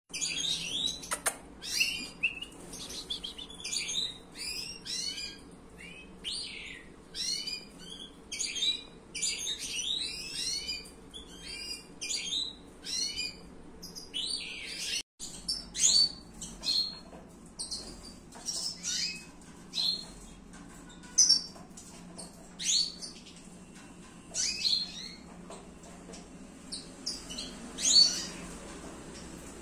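Young European goldfinches calling in quick, high, thin chirps, about two a second. After a brief drop-out about halfway, the chirps come more sparsely.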